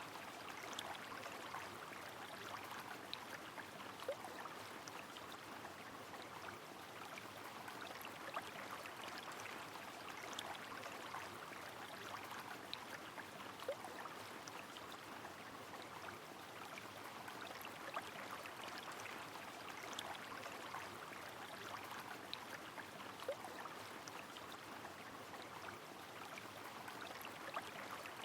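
Steady rush of a flowing river in the rain, with scattered sharp drops ticking irregularly through it.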